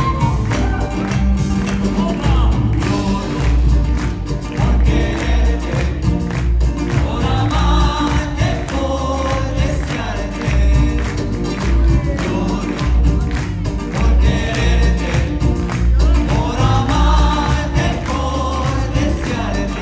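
Live Peruvian music: several voices singing together over a strong, pulsing bass and steady percussion.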